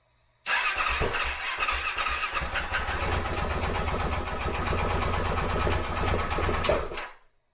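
KTM 690's single-cylinder engine started after a top-end rebuild. It turns over unevenly for about two seconds, catches and runs steadily, then cuts off suddenly about seven seconds in.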